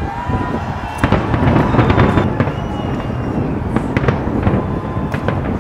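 Large fireworks display going off: a dense run of bangs and crackles, several a second, over a constant low rumbling din.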